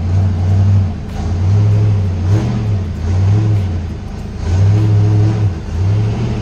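Fox-body Mustang's 5.0 V8 engine running and being revved in several short throttle blips, a deep rumble rising and falling again and again.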